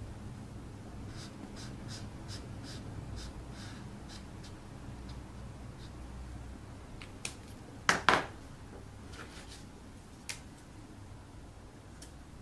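Quiet hand craft work on a cardboard egg-box boat: faint scratching and small taps, with a louder brief clatter about eight seconds in, over a low steady hum.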